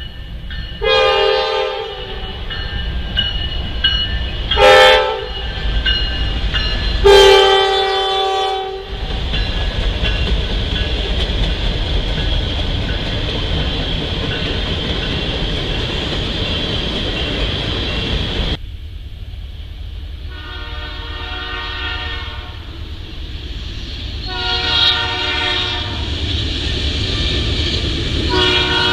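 Diesel freight locomotive horn sounding for a grade crossing, a long, a short and a long blast, over the rumble of a train. After a cut, a second approaching locomotive sounds its chime horn, two long blasts and the start of a third.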